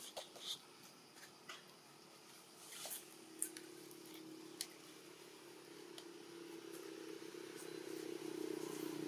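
A faint engine droning steadily, growing louder over the last few seconds, with scattered small clicks and rustles over it in the first half.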